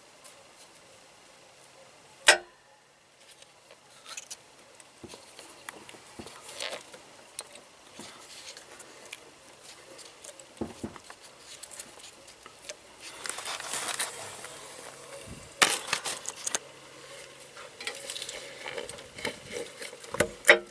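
Metal tools and engine parts clinking and knocking during hand work on an engine. There is one sharp knock about two seconds in and a longer spell of rattling clatter later on.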